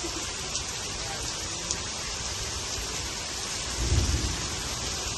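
Steady heavy rain falling, with a few sharper drop ticks and a brief low rumble about four seconds in.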